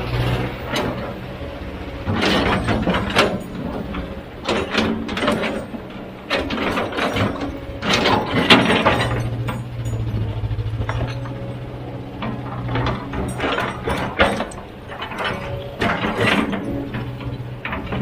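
Heavy machinery at work: a diesel engine running steadily under repeated irregular clattering and scraping strikes, like a loader bucket working through rock.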